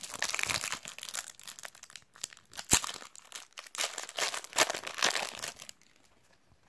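Foil trading-card packet (a Panini FIFA 365 sachet) crinkling and tearing as it is opened by hand, with one sharp crack about two and a half seconds in. The crinkling stops about a second before the end.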